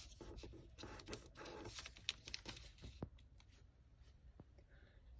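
Sheet of origami paper being folded and creased by hand, with faint crisp rustles and small clicks of the paper against the table; the handling stops about three seconds in.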